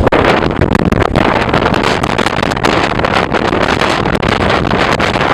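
Strong thunderstorm wind rushing loudly and steadily, buffeting the microphone.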